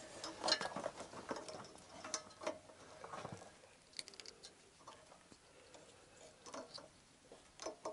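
Plastic wiring-loom connectors and wires being handled and fitted by hand: scattered light clicks, rustles and small scrapes, with a few sharper clicks about half a second in, around two seconds in, at four seconds and near the end.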